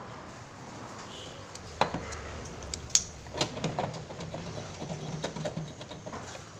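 Clicks and knocks of hands and a tool working loose a refrigerator's front fan motor, with two sharp clacks about two and three seconds in, then a run of smaller clicks.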